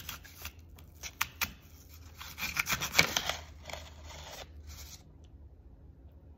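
Small kitchen knife cutting the core out of an apple, a quick run of short scraping strokes of the blade through the crisp flesh, loudest about halfway through, stopping about five seconds in.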